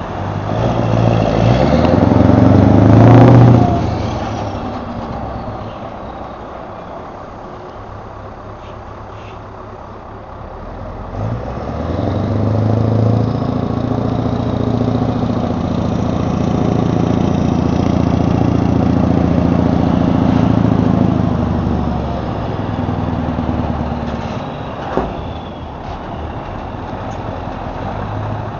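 Scania 143 truck's V8 diesel engine revving hard about three seconds in, dropping back to a lower run, then pulling steadily under load for about ten seconds while manoeuvring the trailer before easing off near the end. A single short sharp sound cuts in briefly near the end.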